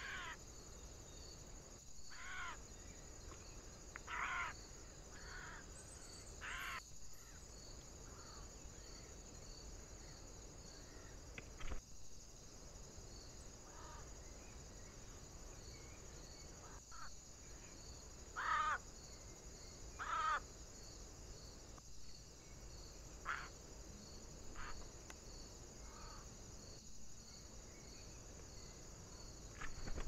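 Eurasian jay giving harsh, rasping screech calls, about a dozen short ones at irregular intervals, the loudest two close together past the middle. A single sharp click comes about twelve seconds in.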